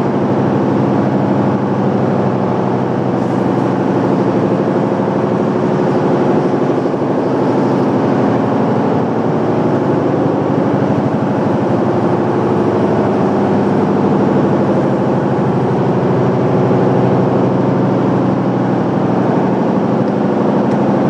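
A machine running steadily with an engine-like drone and a hiss over it, unchanging throughout.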